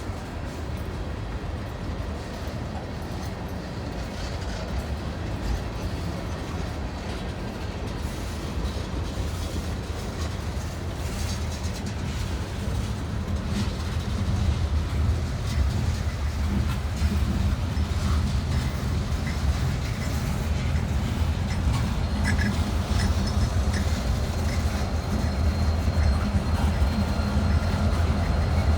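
Freight train rolling past, its wheels clacking over the rails with a steady low rumble that grows louder from about halfway as the pushing diesel locomotives draw near.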